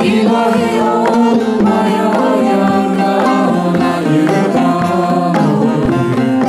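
Bağlama (long-necked Turkish saz) played in a folk song, with a woman singing over it.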